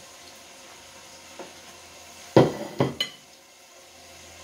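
A ceramic plate with a slotted spatula on it set down on a stone countertop: a few sharp clattering knocks about halfway through. Underneath, a faint steady sizzle of pork chops frying in butter under a glass lid.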